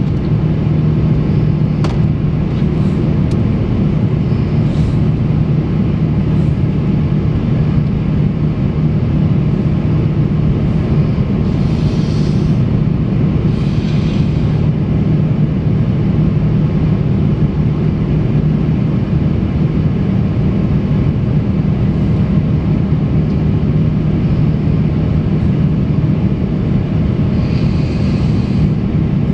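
Steady low drone inside the cabin of an Airbus A350-900 over the wing, its Rolls-Royce Trent XWB-84 engines and the airflow heard during the climb after takeoff.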